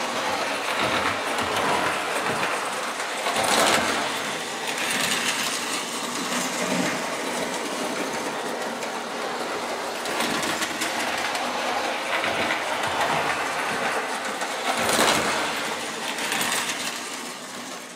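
Lionel O-gauge toy electric trains running on the track: a steady whirring rattle of the motors and wheels on the rails. It swells twice, about four and fifteen seconds in.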